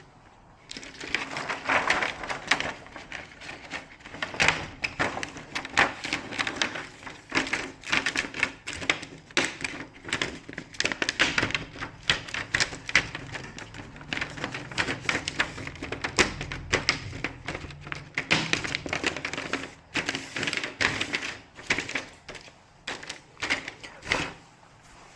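Rapid, irregular clicking and tapping of hand tools and small hard parts being worked on a TV set under repair.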